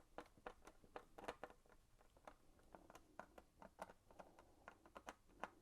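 Faint, irregular clicks and light taps, several a second, from a screwdriver and plastic parts as a selector switch is screwed onto a plastic tumble dryer control panel.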